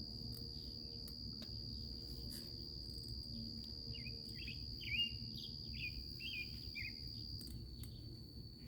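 A steady high-pitched insect trill, with a string of short bird chirps between about four and seven seconds in.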